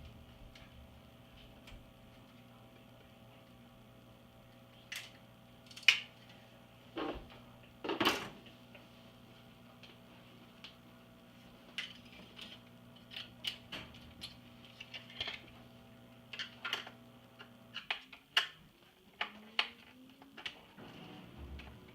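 Scattered clicks and clinks of small metal and plastic parts and tools being handled while an iMac G3 is taken apart, over a steady background hum that stops about three-quarters of the way through, after which a faint tone slowly rises.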